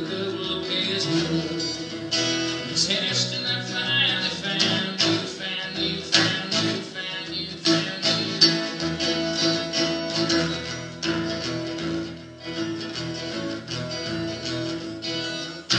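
Epiphone acoustic guitar strummed in a steady rhythm, playing an acoustic blues tune after the last sung line.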